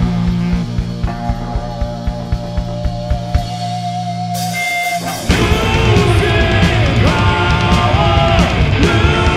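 Live rock band playing. For about five seconds a held bass note rings under steady kick-drum beats; then the full band comes in louder with drums, guitars and sung vocals.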